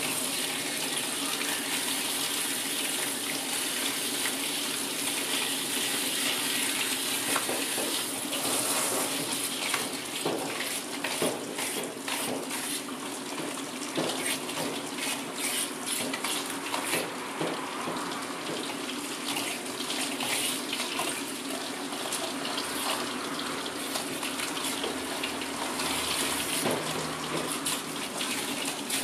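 Handheld grooming-tub shower head spraying water through a dog's wet, curly coat to rinse out the shampoo: a steady hiss of running water, with uneven splashing as the spray moves over the coat, busier from about ten seconds in.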